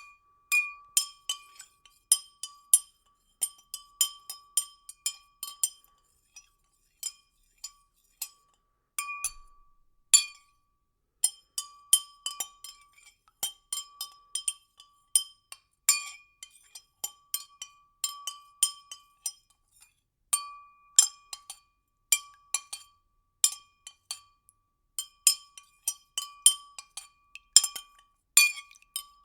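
Liquid being stirred in a glass, the spoon clinking against the glass wall a few times a second in uneven runs. Each clink rings with the glass's clear tone.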